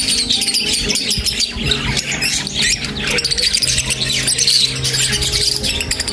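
A flock of caged lovebirds chattering, with a dense, continuous run of short, shrill chirps and squawks. Background music with steady low notes plays underneath.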